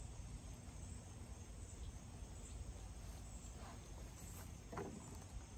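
Faint steady chirring of insects in the grass and trees, with a soft brief knock or rustle of ear-muff handling near the end.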